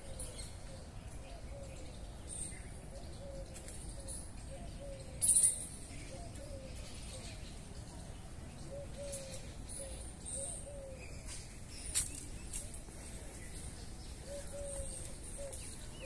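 Birds calling in a garden: soft cooing notes of a dove come in short runs, with thin high chirps of small birds scattered over them. A short, loud, high-pitched sound comes about five seconds in, and a sharp click about twelve seconds in.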